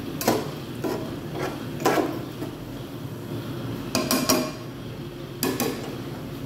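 Metal ladle stirring mung bean stew in a metal cooking pot, clinking several times against the pot's side and rim with short ringing.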